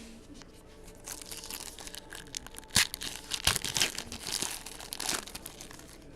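Plastic trading-card pack wrapper crinkling and tearing as it is opened, with two sharper cracks near the middle.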